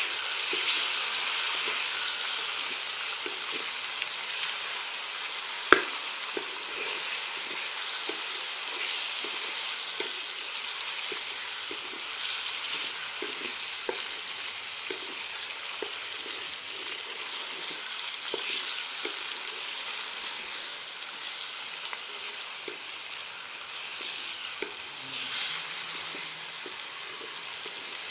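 Chicken sizzling in hot oil with ginger-garlic paste and whole spices while it is stirred, with light clicks of the spoon against the pan and one sharp knock about six seconds in.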